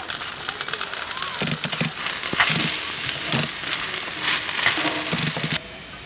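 Curry sauce sizzling and crackling in a frying pan on a camping gas stove as it is stirred with a spoon. The sizzle gets louder about two seconds in and cuts off suddenly just before the end.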